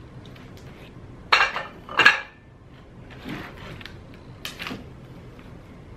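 Four short bursts of handling noise, irregularly spaced, the one about two seconds in the loudest.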